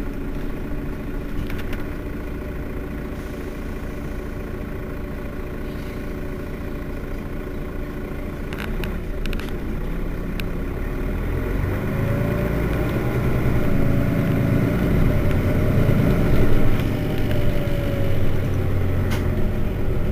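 Mercedes-Benz Citaro city bus's diesel engine idling steadily at a stop. A few short clicks come a little before halfway. From about halfway a louder, deeper rumble builds.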